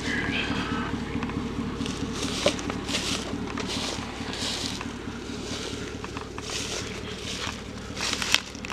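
Footsteps crunching irregularly through dry grass and brush, over a steady low engine hum of a vehicle idling.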